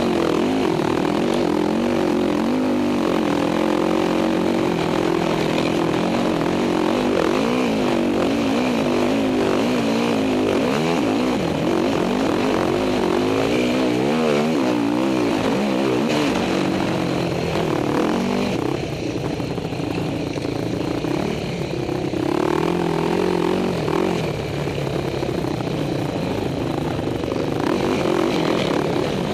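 Race quad's engine heard from on board the machine, revving up and down continuously as the rider accelerates and backs off through the track's corners. The revs drop and come back up a few times in the second half.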